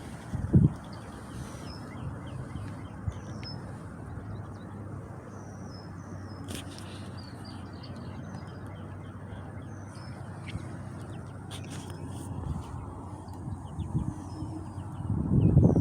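Birds chirping at a lake: many short, high, falling chirps scattered throughout. Steady low outdoor noise lies underneath, and a louder low rumble comes near the end.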